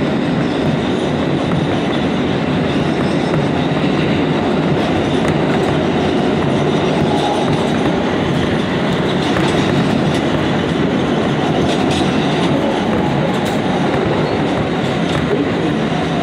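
New York City subway G train running at speed through an underground tunnel, heard from inside the car: a steady, loud rumble of wheels on rail, with a few light clicks over the rail joints about two-thirds of the way through.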